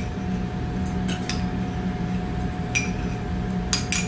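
A spoon clinking and scraping against a small bowl as thick kidney-bean paste is scraped out of it, a few sharp clinks spaced about a second apart, over a steady low hum.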